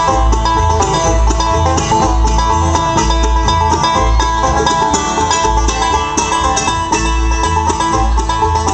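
Bluegrass band playing an instrumental passage: banjo, mandolin and acoustic guitar picking over upright bass notes on a steady beat.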